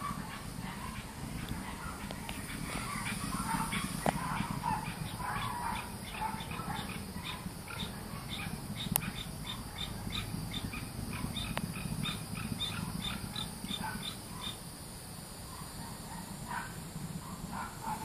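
Low, steady rumble of a distant Delta IV rocket launch under a steady high cicada drone. Dogs and birds call over it, with a quick run of evenly spaced chirps, about three a second, from about six seconds in to about fourteen.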